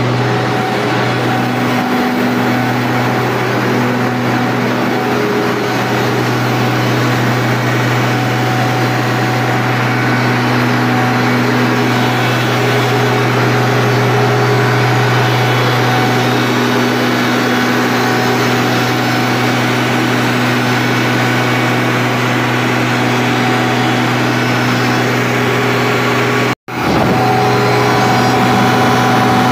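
Greaves Cotton 500 kVA 12-cylinder diesel engine running loud and steady at a constant speed on a load test, a deep unchanging hum with a low drone. Near the end the sound drops out for a split second.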